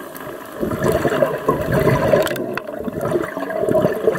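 A scuba diver's exhaled bubbles bubbling out of the regulator underwater, a long burst starting about half a second in, easing briefly past the middle, then picking up again.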